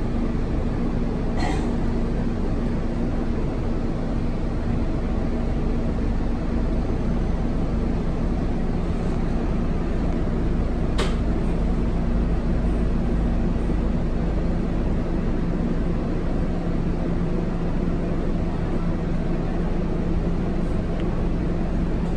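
Scania K230UB bus's five-cylinder diesel engine idling steadily, heard from inside the passenger cabin as a constant low rumble with a steady hum. A sharp click sounds near the start and another about halfway.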